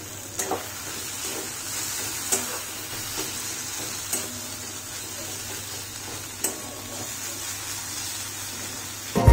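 Steel spatula stirring and scraping a potato and bitter-gourd mash in a steel wok, with a steady sizzle of the food frying in ghee. A few sharp clinks of the spatula on the pan, about two seconds apart.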